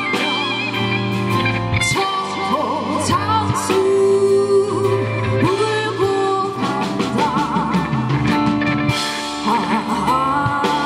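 A woman singing into a microphone, amplified through a PA, with a live band of drum kit and bass guitar accompanying her.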